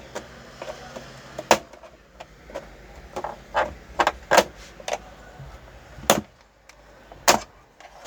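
A series of sharp, separate clicks and knocks, about seven at irregular intervals, from hard objects being handled and set down.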